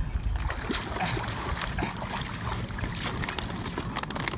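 Water splashing and sloshing around a raft of plastic bottles as it is pushed through shallow water, with small irregular splashes and knocks throughout and a low rumble of wind on the microphone.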